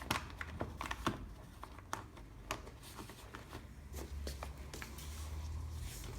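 Irregular rustling and light clicks of stroller harness straps and their plastic fittings being worked out through the slots of a Mutsy Igo seat's fabric.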